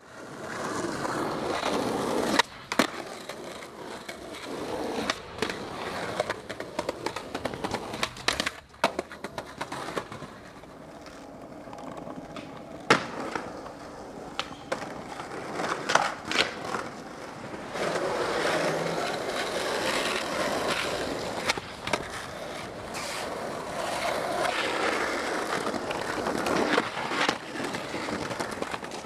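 Skateboard wheels rolling over concrete and pavement, broken again and again by sharp clacks of the board hitting the ground.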